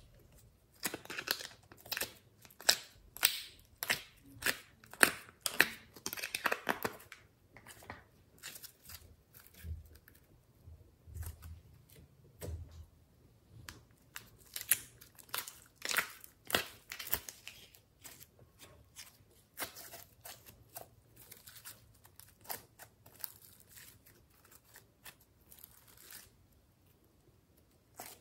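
Hands handling small plastic containers of slime and clay: sharp plastic clicks and crinkling, tearing sounds as cases and lids are opened. The clicks come in several clusters with quieter gaps between.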